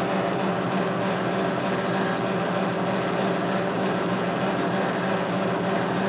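Metal lathe running steadily at slow speed, a low machine hum with a few steady tones, while a small rat-tail file is held against a groove in the turning steel shaft.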